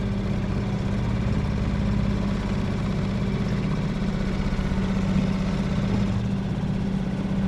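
Small boat's outboard motor running steadily, an even drone with no change in speed.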